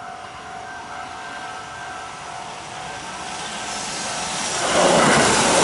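Kintetsu 22000-series limited express electric train, coupled to a 22600-series set, approaching along the track. Its running noise grows steadily louder from about halfway through and is loud near the end as the train draws alongside the platform.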